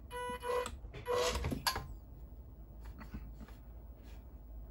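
Stock electric motor and speed controller of a WPL C74 Jimny 1/10 RC crawler whining in a few short throttle blips, with gear noise, then stopping about a second and a half in. Faint clicks follow. The owner counts the whine as part of the noisy stock electronics he wants to replace.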